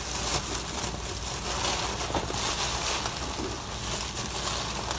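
Thin plastic oven bags crinkling and rustling continuously as they are handled, a second bag being pulled over a full one.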